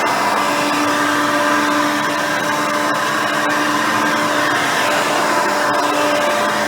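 Hoover Elite 350 soft-bag upright vacuum cleaner running steadily: its 5-amp motor and seven-blade fan give a constant rush of air with several held tones, at an even level throughout.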